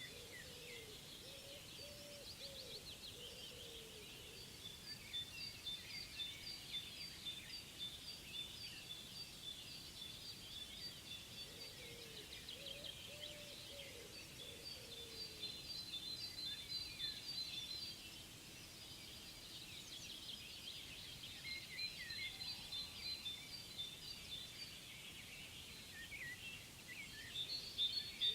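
Several birds singing and chirping, with rapid high repeated notes throughout and a lower warbling call twice, near the start and about halfway through, over a faint steady background.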